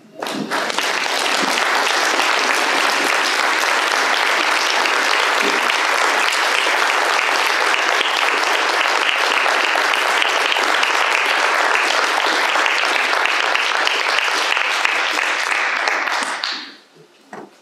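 Applause from a roomful of people, starting all at once, holding steady for about sixteen seconds and dying away near the end.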